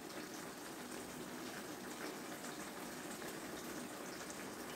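Pot of mini cucumbers simmering in their cooking liquid on a gas stove, a faint steady bubbling.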